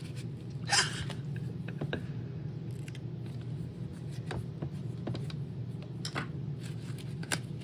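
Scattered small clicks and scrapes of Roomba parts being handled and cleaned of hair and dirt, the loudest about a second in, over a steady low hum.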